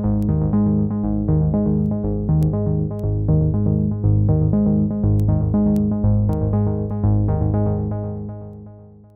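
Electronic background music: a synthesizer playing quick, repeating notes, fading out over the last two seconds.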